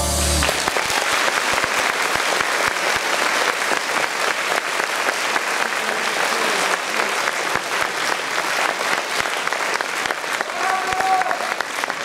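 Theatre audience applauding steadily after the dance music stops about half a second in. A short pitched voice cuts in briefly near the end.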